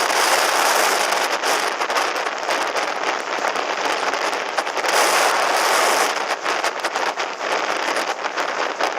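Strong wind buffeting the microphone while windsurfing, with water splashing against the board: a dense crackling rush, loudest about five to six seconds in.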